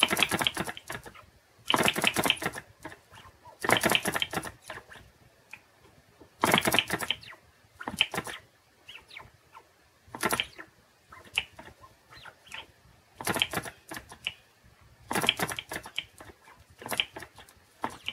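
Small flame licker (vacuum) model engine clattering as its flywheel is flicked by hand, each spin a quick run of clicks that dies away within a second, repeated about every two seconds. The engine turns over only briefly each time and does not keep running.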